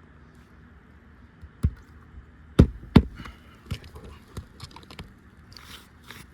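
Sharp knocks and taps of hand tools working on an asphalt-shingle roof as a replacement shingle is fastened down. The two loudest strikes come close together a little past halfway, followed by a few lighter taps.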